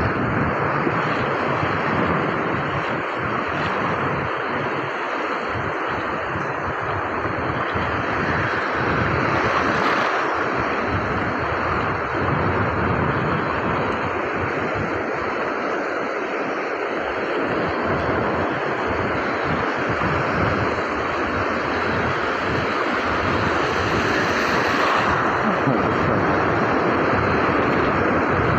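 Surf breaking along a reef edge and washing across shallow water in a steady rush, with wind buffeting the microphone. The wash swells louder twice, about a third of the way in and again near the end.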